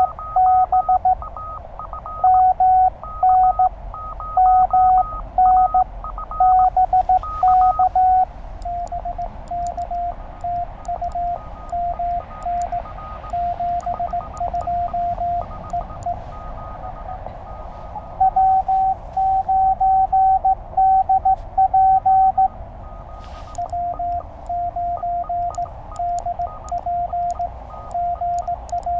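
Morse code (CW) from a Penntek TR-35 transceiver: a keyed tone of dots and dashes at one pitch. It alternates between louder stretches and quieter, slightly lower-pitched ones as two stations take turns sending during a contact, with faint clicks during the quieter stretches.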